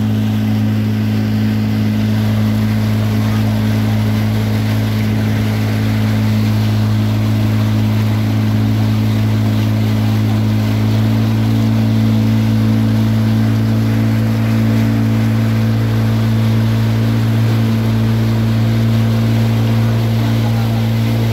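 Motorboat engine running at a steady speed, a constant low drone, with the hiss and splash of the wake churning along the hull.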